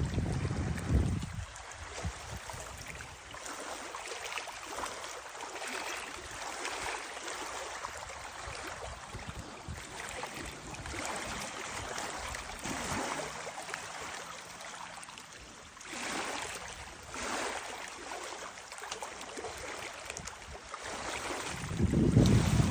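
Small waves lapping and gurgling at the water's edge in soft, irregular swells. Wind buffets the microphone briefly at the start and again near the end.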